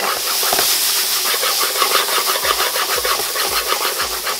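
Vegetables sizzling in oil in a stainless steel sauté pan on high heat while the pan is shaken back and forth. Quick rhythmic rattles run through it from about a second in, and low thumps come about twice a second in the second half.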